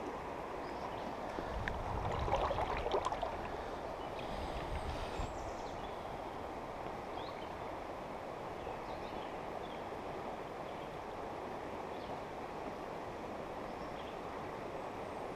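Steady rushing of a rain-swollen, high-running creek flowing past, with a few louder low bumps and rustles about two to three seconds in.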